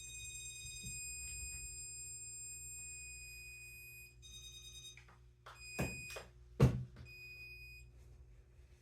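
Electronic stud finder sounding its steady high tone as it passes over a wall stud, held for about four seconds, then again briefly and for about a second near the end. Two sharp knocks against the wall about six seconds in are the loudest sounds.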